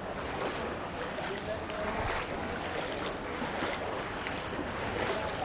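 Steady outdoor noise of the flooded Ganga's moving water, with wind buffeting the microphone and faint voices in the distance.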